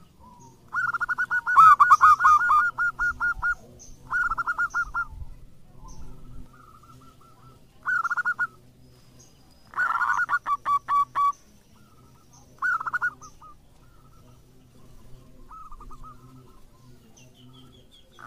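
Zebra dove (perkutut) cooing: about seven phrases of quick, rolling staccato notes with short pauses between, the longest and loudest phrase near the start.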